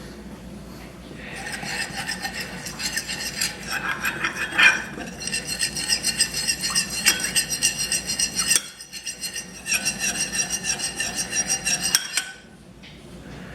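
A spoon stirring a cornstarch-and-water slurry in a small bowl, with fast scraping strokes that make the bowl ring. It stirs in two spells with a short pause between them, and stops near the end.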